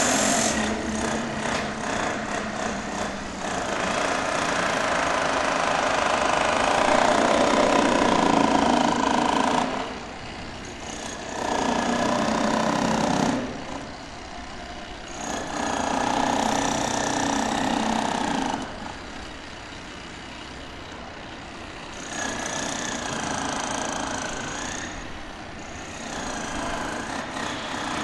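Construction-site din: a hydraulic hammer breaking in bursts, a long stretch at first and then several shorter runs a few seconds long with quieter gaps, over a steady engine running beneath.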